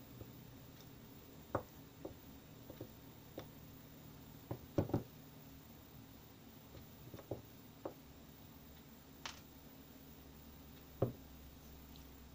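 Scattered small clicks and taps of steel needle-nose pliers and small metal pieces being handled in a wax candle and set down on a wooden desk. A quick cluster of taps comes about five seconds in, and a sharper knock near the end.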